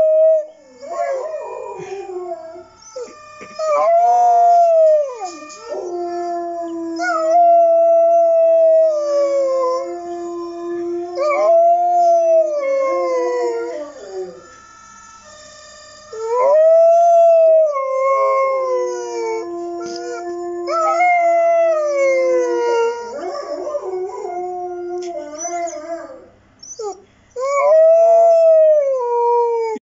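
A dog howling along to the sound of other dogs: a series of long howls, each rising and then sliding slowly down in pitch, with short pauses between them. At times a steadier, lower howl overlaps underneath.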